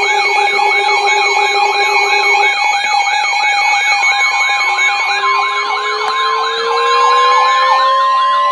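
NOAA weather radio alert alarms sounding together: a warbling, siren-like tone that cycles about three times a second over steady beeping tones. About five seconds in, a steady high tone like the 1050 Hz weather-warning alarm tone comes in, and another tone slowly glides upward near the end.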